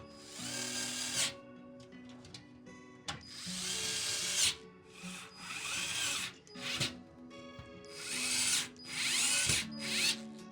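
Small electric screwdriver whirring in about five short bursts, driving screws during a PC assembly.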